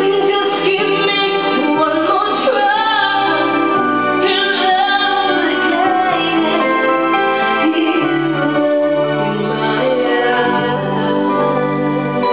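A woman singing into a microphone over sustained chords and a bass line from a Korg X5D synthesizer keyboard.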